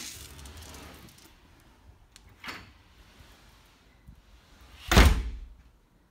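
Room door being opened: a sharp latch click at the start, a lighter knock about two and a half seconds in, and a loud, deep thud about five seconds in.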